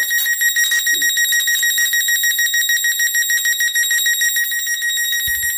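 High-voltage arc from a single-MOSFET flyback transformer driver working as a plasma speaker, sounding an electronic alarm tone: one steady high note pulsing rapidly like an electric bell.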